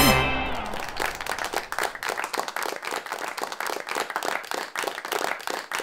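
A group of people clapping and applauding, a dense run of overlapping hand claps, right after the sung song ends.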